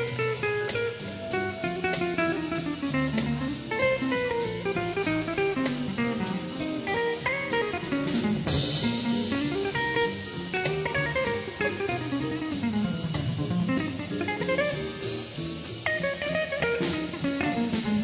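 Small swing band playing live, with a guitar solo of quick single-note runs climbing and falling over walking upright bass and drums.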